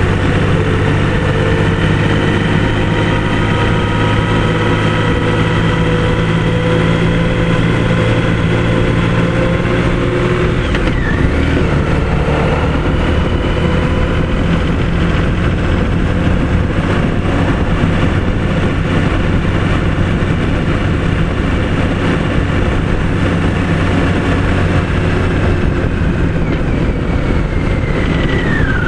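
Motorcycle engine running while riding through town, its note shifting about ten seconds in and falling near the end as the bike slows.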